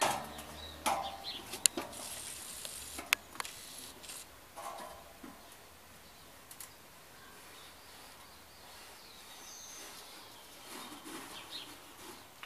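Metal satellite dish and its steel mast being handled and fitted together: a few sharp metallic knocks and clinks in the first three seconds or so, then only faint handling noises.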